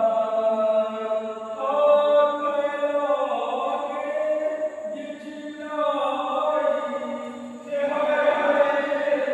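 Voices chanting a noha, a Shia mourning lament, in long drawn-out melodic phrases that change every second or two.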